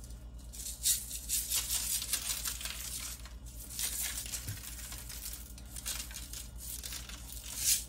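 Dry crackling patter of seasoning being shaken onto butternut squash halves on a parchment-lined baking sheet, in short spells of quick ticks.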